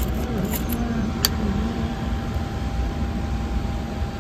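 A single sharp click about a second in as the key is turned in the ignition of a Sur-Ron Ultra Bee electric dirt bike, over a steady low rumble and a faint steady whine.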